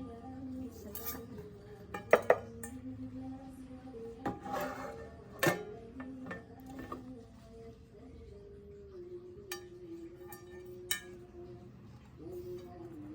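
Metal cookware being handled while unboxed: a few sharp clanks and clinks of pans knocking together, a loud double clank about two seconds in.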